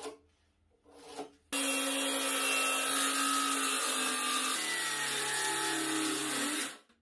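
Handheld circular saw cutting along the edge of a thick ash slab: a loud, steady whine of blade and wood that starts suddenly about a second and a half in. Its pitch steps down a little partway through, and it cuts off abruptly near the end.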